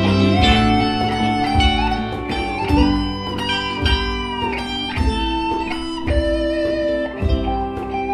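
Live band playing an instrumental passage: electric guitars over keyboard and hand drums, with a melody note bending upward about three seconds in.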